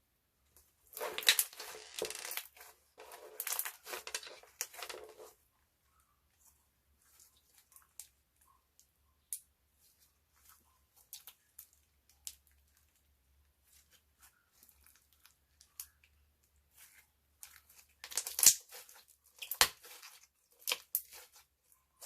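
Clear slime being squished and stretched by hand, giving sticky crackling and popping in two bouts, about a second in and again near the end, with scattered small clicks between.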